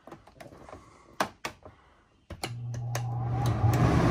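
A few clicks of the control knob on a camper's ceiling-mounted air conditioner, then the unit switches on: a steady low hum and fan noise start suddenly about two and a half seconds in and build in loudness as it begins blowing cold air.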